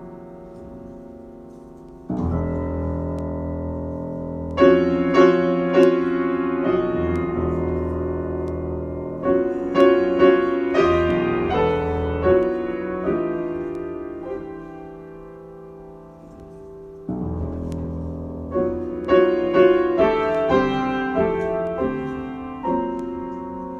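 Solo piano improvisation: a deep low chord struck about two seconds in and held ringing, with a melody of separate notes played above it, then a second low chord a little past the middle under a further run of notes.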